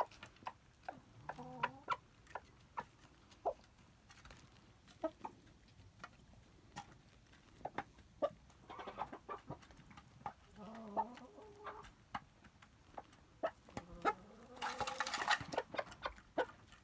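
Chickens clucking: a run of short, sharp clucks with several longer, drawn-out calls, the loudest near the end.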